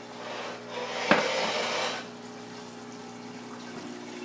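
Water circulating through an aquarium's overflow and sump, with a steady low hum from the return pump. About a second in there is a sharp knock inside a brief louder rush, after which the flow settles to a steady rush.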